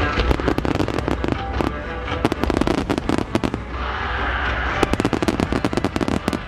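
A large fireworks display: many shells bursting and crackling in quick succession over a steady low rumble. There is a smoother hissing stretch around four seconds in, and then another burst of dense crackles.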